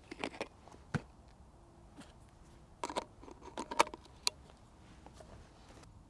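A camera and an 85mm lens being handled as the lens is swapped and fitted: scattered small clicks and light rattles, with a cluster of them about three to four seconds in.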